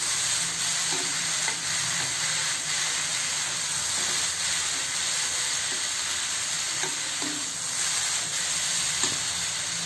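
Boiled moong dal being stirred into hot oil and tempering in a pan: a steady sizzle with the light scrape of a steel spoon against the pan as the dal is mixed.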